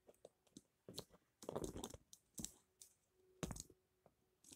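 A few faint clicks and taps of a small plastic Bakugan ball being handled and rolled on a tabletop, the clearest about three and a half seconds in.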